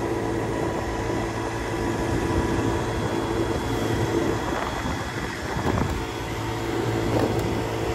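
Motor scooter running steadily at cruising speed, its engine a steady hum under wind rushing over the microphone.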